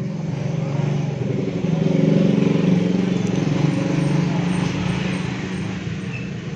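A motor vehicle engine passing close by, getting louder about two seconds in and then fading away.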